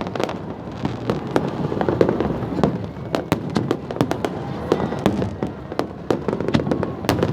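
Fireworks going off in quick succession: many sharp, irregular bangs and crackles, several a second, overlapping into a continuous rumble.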